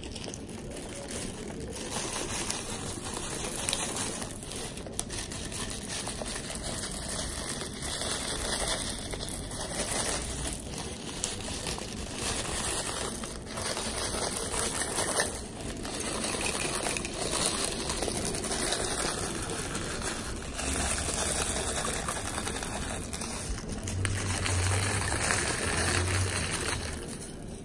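Plastic fishbowl beads being sprinkled onto a flattened sheet of clear slime and pressed in by hand: a steady soft crinkling and crackling.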